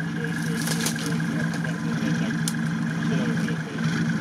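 Off-road buggy engine running steadily at an even pitch as the buggy crawls up a steep bank, with a few short, sharp clicks.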